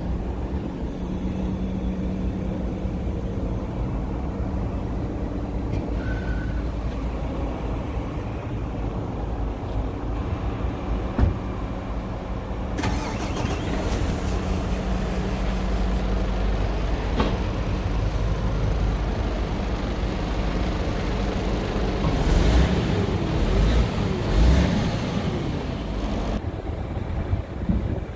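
A heavy diesel engine idling steadily, with its rumble growing louder for a few seconds past the middle and again near the end.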